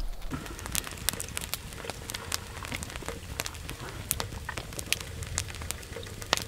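Campfire crackling: sharp, irregular pops and ticks, a few a second, over a low rumble.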